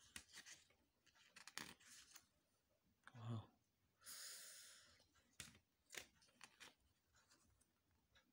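Glossy paper pages of a CD booklet being handled and turned: soft rustles and small clicks, with a longer sliding rustle about four seconds in.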